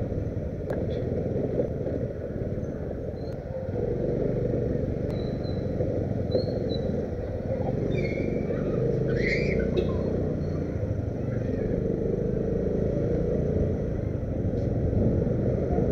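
Motorcycle riding slowly through town: a steady low engine and road rumble, with a few short high chirps about eight to ten seconds in.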